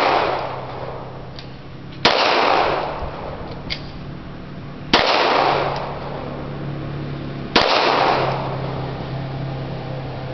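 Three single pistol shots about three seconds apart, each followed by a long echo dying away.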